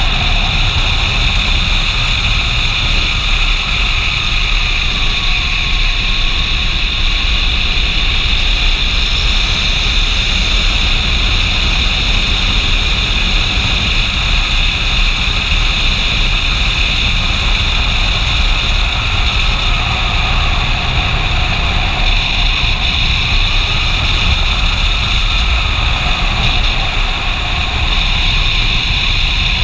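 Steady rush of wind over a helmet-mounted camera on a motorcycle riding at road speed. The motorcycle engine's note rises and falls faintly and slowly underneath.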